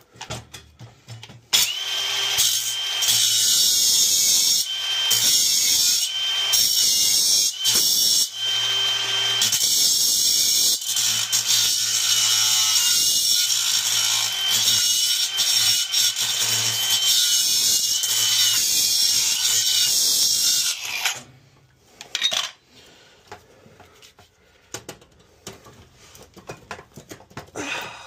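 Milwaukee M18 Fuel cordless grinder cutting through a seized shipping screw by the boiler's burners. It runs in long cuts with a few brief breaks, its high motor whine dipping under load, and stops about three quarters of the way through. Light clicks of tools being handled follow.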